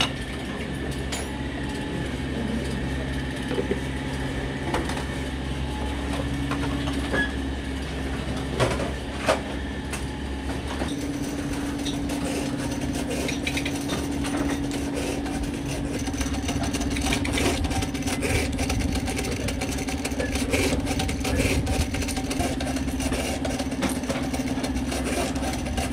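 Steady low hum of workshop machinery with scattered knocks. In the second half come frequent light clacks as a hand-lever press works white plastic switch-button parts.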